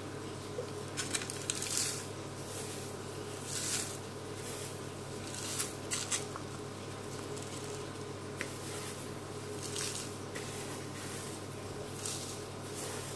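Carbonized rice husk rustling and pattering as it is scooped by hand from a plastic basin and dropped into a clear plastic cup, in soft irregular bursts over a steady low hum.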